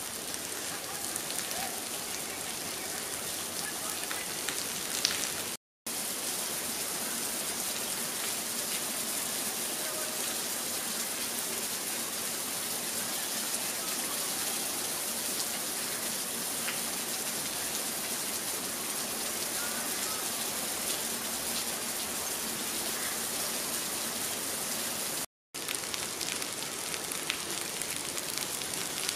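Steady heavy rain falling, an even continuous hiss, cut by two momentary silent gaps.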